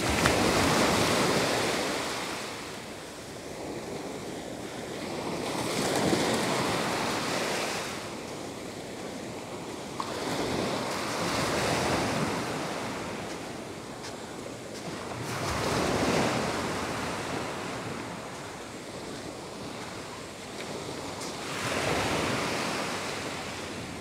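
Small Gulf of Mexico waves breaking and washing up a sand beach, each wash swelling and fading about every five to six seconds, with some wind on the microphone.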